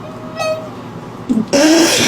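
A cat vocalising: a brief, high mew about half a second in, then a loud, harsh, noisy cry near the end.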